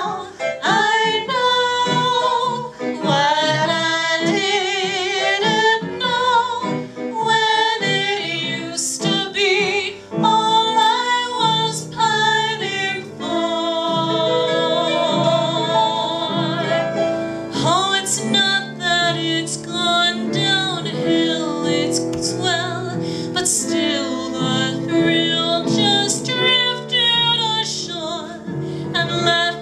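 Women singing a 1920s-style cabaret number with strong vibrato, over live keyboard accompaniment; a long held, wavering note comes about halfway through.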